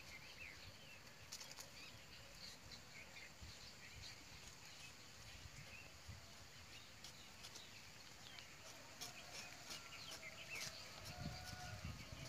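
Faint rural ambience with small birds chirping now and then, a few soft clicks, and some low thumps near the end.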